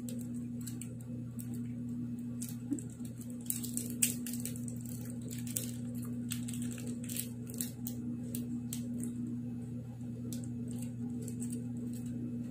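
Thin plastic wrapper of a chocolate wafer bar crinkling and crackling as it is peeled open by hand, in short sharp crackles that are thickest in the middle. A steady low hum runs underneath.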